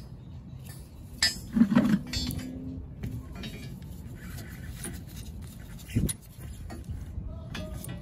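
Metallic clinks and knocks of a spring compressor's steel jaws and threaded rods against a coil spring as the tool is handled and positioned. There is a quick cluster of clanks with a short ring a couple of seconds in, and a single louder knock later.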